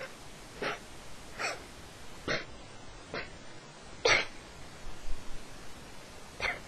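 A woman sneezing in a rapid series, about five small cat-like sneezes a second or so apart, the strongest about four seconds in.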